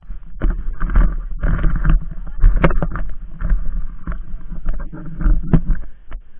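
Low rumble of wind and road vibration with many irregular knocks and rattles, picked up by an action camera clamped to a bicycle's handlebar as the bike rolls over a rough village road.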